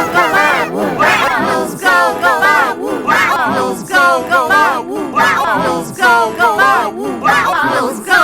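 A singing voice with a fast, warbling wobble in pitch from audio effects, repeating short sung phrases about once a second.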